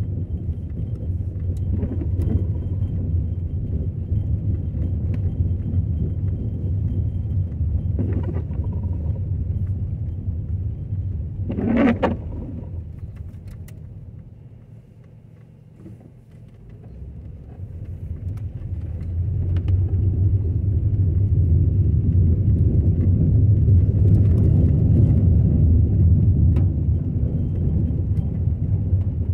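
Car driving on wet pavement, heard from inside the cabin: a steady low road-and-engine rumble that fades away as the car slows near the middle and builds again as it speeds up. A short knock stands out just before the slowdown.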